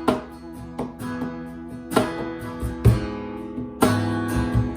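Live band music with no singing: strummed acoustic guitar chords, with a sharp strum roughly every second, over sustained low bass notes.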